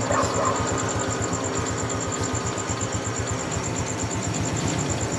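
An engine idling steadily, with an even low pulse.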